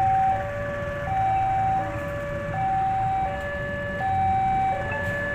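Level-crossing warning alarm sounding as a train approaches: an electronic two-tone signal alternating high and low, each tone lasting about three quarters of a second. A low steady rumble underneath.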